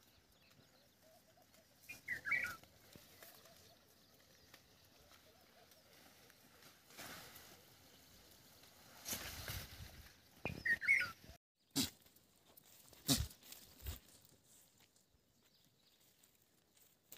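Faint sound of a grazing goat herd, with two short high-pitched animal calls, one about two seconds in and one about eleven seconds in, and a few brief knocks or rustles in the second half.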